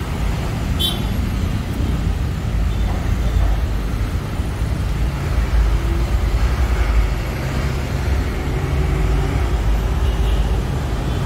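Steady low rumble of road traffic, with one sharp click about a second in.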